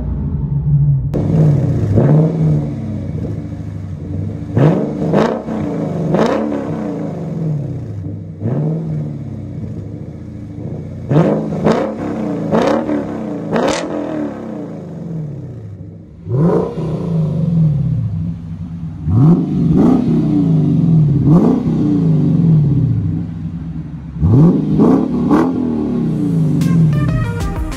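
2022 Lexus IS 500's 5.0-litre V8 through a Kinney's Street Demon custom exhaust, revved again and again. Each rev climbs quickly and falls back, in clusters of two or three with a steady lower note between them.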